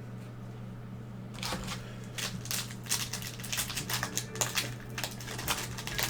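Crinkling and crackling of a trading-card pack wrapper being torn open and handled, starting about a second and a half in as a run of irregular crackles, over a steady low electrical hum.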